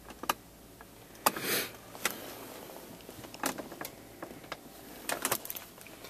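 Scattered plastic clicks and knocks from a Volvo XC90's automatic gear shifter assembly and console trim being handled, with a short scraping rustle about a second in and a quick cluster of clicks near the end.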